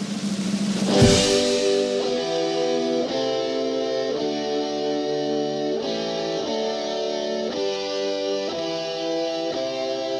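Rock band music: a drum fill ends in a cymbal crash about a second in, then electric guitar chords with drums.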